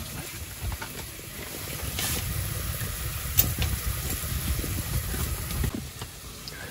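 Chopped onions frying in a steel pot on a wood stove: a faint steady sizzle under a low rumble, with a couple of light clicks.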